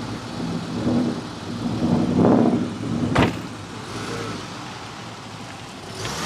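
Dodge Challenger engine idling, swelling louder in a short rev about two seconds in. A car door shuts with a sharp thud a second later, and the engine then keeps idling.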